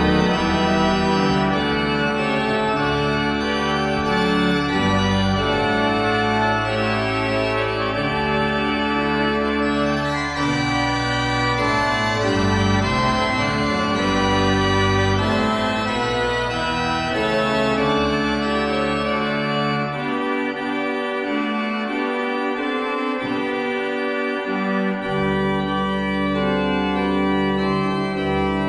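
Church organ playing sustained chords with deep held bass notes. The bass drops out for a few seconds about two-thirds of the way through, then returns.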